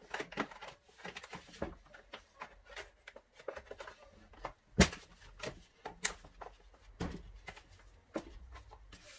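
Handling noises from work on a Stihl MS 170 chainsaw: irregular clicks and knocks of parts and tools, with one sharp, much louder knock near the middle.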